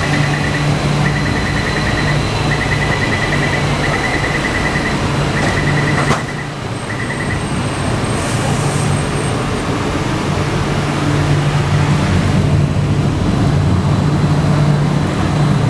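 Door-closing warning on a Taipei Metro Wenhu Line platform: a high, rapid beeping in short bursts about once a second, ending about seven seconds in, with a knock as the doors shut about six seconds in. A steady low hum from the Bombardier train runs underneath.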